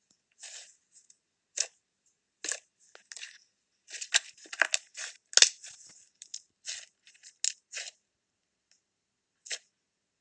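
Butter slime being pressed and squeezed by hand, giving irregular sharp crackles and clicks. They come thickest about halfway through and thin out to a few isolated clicks near the end.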